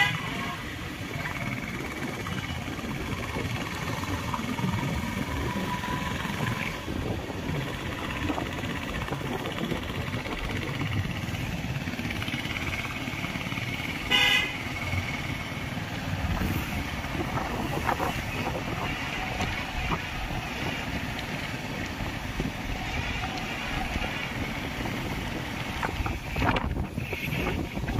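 Steady road and engine noise from a moving vehicle, with one short horn toot about halfway through.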